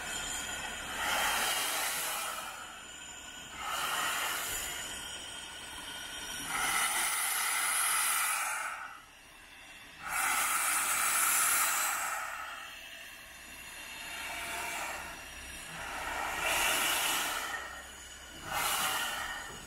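Steam locomotive letting out a series of hissing bursts of steam, about seven, each one to two seconds long, a few seconds apart and uneven in spacing.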